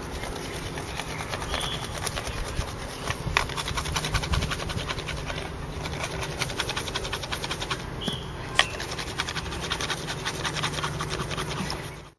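Two wooden sticks rubbed hard against each other by hand to make fire by friction: a fast, steady back-and-forth scraping of wood on wood.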